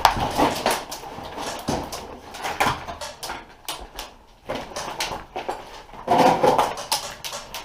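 Irregular sharp clicks and knocks ringing in an echoing room during an airsoft fight, with a voice shouting about six seconds in.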